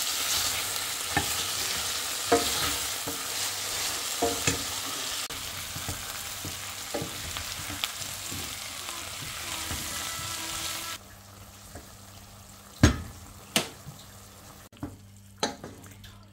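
Chicken, onion and mushrooms sizzling in a nonstick frying pan as a wooden spatula stirs them, scraping and knocking against the pan. About eleven seconds in the sizzle drops away suddenly, leaving quieter stirring with a few sharp knocks of the spatula.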